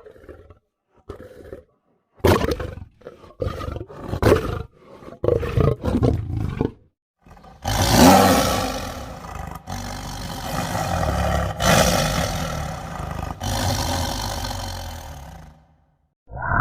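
Allosaurus creature sound effect, voiced as a dinosaur with a broken jaw: a string of short grunting calls over the first seven seconds, then a long, loud roar that fades out near the end.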